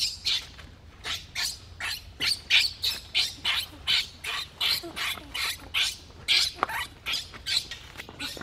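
Baby macaque squealing over and over in short, high-pitched calls, about three a second.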